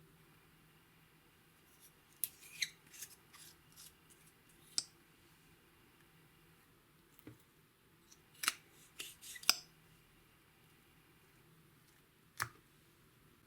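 Sharp clicks and short scrapes of small hard objects being handled, in a cluster about two seconds in, another around eight to nine and a half seconds, and a single click near the end.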